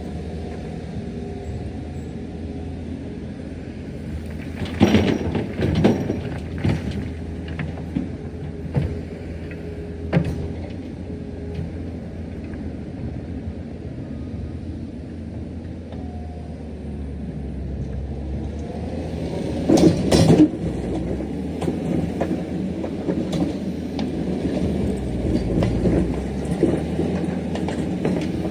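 Diesel engine of land-clearing heavy equipment running steadily, with loud clanks and knocks about five seconds in and again about twenty seconds in, and smaller knocks between; the engine grows a little louder in the second half.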